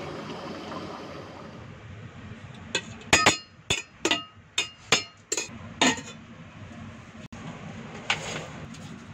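A steel serving spoon clinking against a stainless steel rice pot and plate as cooked rice is scooped out: a run of about nine sharp, ringing clinks in the middle. Before them comes a steady hiss from the gas stove burning under the boiling curry.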